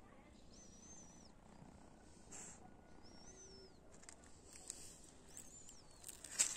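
A small bird calling: a thin, high whistle that rises, holds and falls, three times about two and a half seconds apart. A few sharp knocks near the end.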